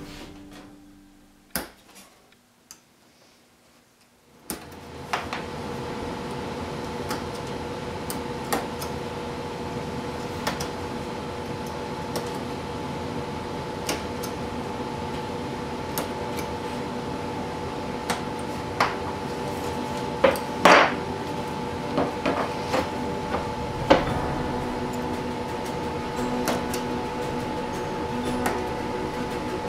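Hobby knife cutting the small tabs that hold laser-cut plywood parts in their sheet: scattered light clicks and snaps, with a few louder knocks about two-thirds of the way in. A steady hum sets in a few seconds in.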